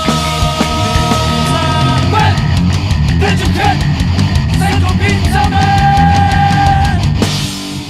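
Rapcore/metal band playing an instrumental passage: heavy guitars, bass and drums, with long held high notes over the top. The sound thins out briefly near the end.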